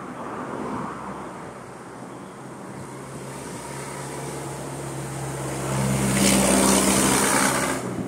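A motor vehicle going past close by: a low engine hum that builds, loudest with a rush of tyre and wind noise about six to seven and a half seconds in, then falls away sharply at the end.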